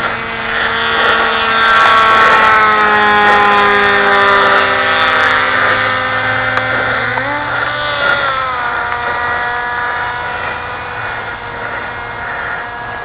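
Motor of a large homemade foam F-22 Raptor radio-controlled model plane in flight: a steady whine whose pitch slides down about halfway through and rises again a second or two later as the plane passes and turns, fading near the end.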